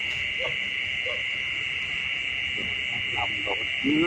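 Steady, high-pitched chorus of crickets and other night insects, with a few short, low calls breaking in, the loudest one near the end.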